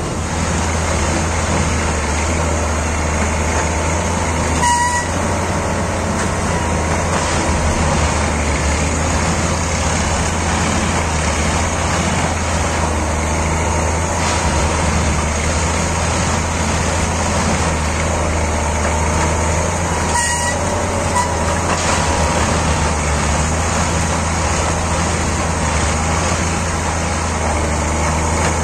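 Diesel engine of a Plasser & Theurer Unimat 08-275 track tamping machine running steadily with a deep constant hum. Two brief high beeps about five seconds in and again about twenty seconds in.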